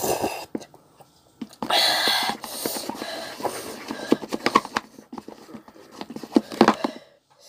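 A loud, breathy sniff about two seconds in, with shorter breaths near the start, over a run of small clicks and taps from a paper cup of spicy fire noodles being handled close to the microphone.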